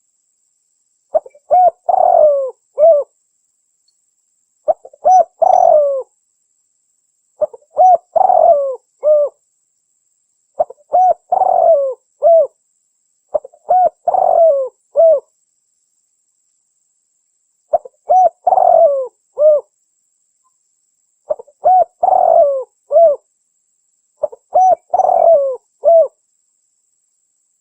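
Spotted dove cooing: eight phrases of several rounded coos each, repeated about every three seconds, with a longer pause around the middle.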